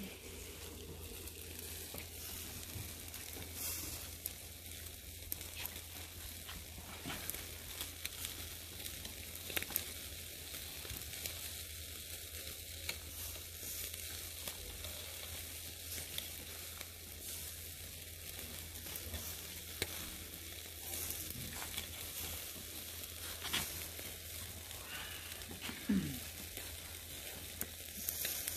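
Chicken pieces and kebab skewers sizzling on a wire grill over hot charcoal, with scattered crackles and pops. A brief squeak near the end.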